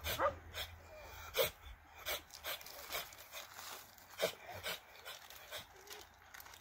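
Dogs whining and yelping in a string of short cries, a few rising in pitch.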